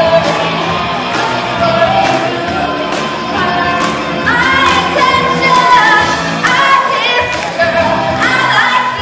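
Live rock band playing: a woman singing lead over electric guitars and a drum kit.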